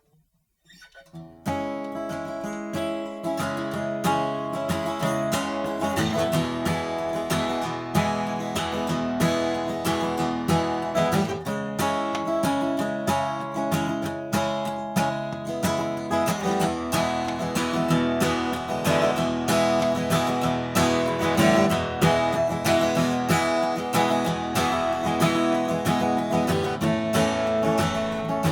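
A Martin D-1 Authentic 1931, a 12-fret mahogany dreadnought acoustic guitar, played solo with busy strummed chords, starting about a second and a half in after a near-silent moment.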